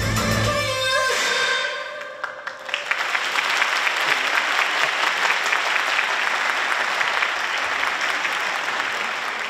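A pop song's backing track ends within the first two seconds, then an audience applauds steadily.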